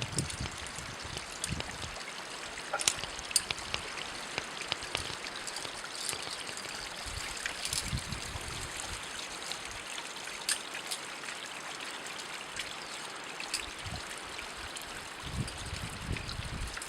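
Water running steadily in a stream, with scattered light clicks and a few low thumps.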